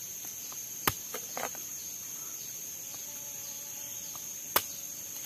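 Machete blade striking a durian's husk: two sharp knocks, about a second in and near the end, with a few lighter taps between. A steady high-pitched insect drone sounds behind them.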